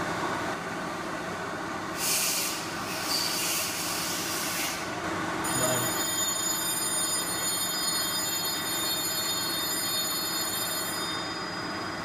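Steady mechanical running noise. About two seconds in, a hiss comes in and lasts some three seconds. Then, from about five and a half seconds until near the end, a high-pitched whine of several steady tones sounds over it.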